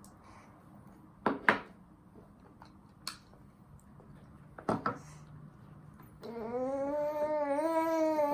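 A few sharp clicks and taps during a baby's meal, then from about six seconds in an 11-month-old baby's long, wavering vocalizing.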